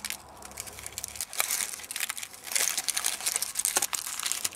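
Foil wrapper of a chocolate surprise egg crinkling and tearing as it is peeled off by hand, a dense run of small crackles that gets busier about two and a half seconds in.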